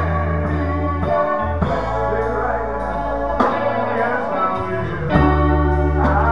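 Live gospel band playing: an electric bass holds long low notes that step to new pitches every second or two, over electric guitar and a drum kit keeping a steady beat with cymbal ticks. A man's voice sings over the band.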